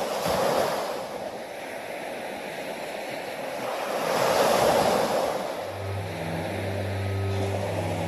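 Small sea waves breaking and washing up a sandy beach, surging twice, about half a second in and again around four and a half seconds. Low steady music notes fade in from about six seconds.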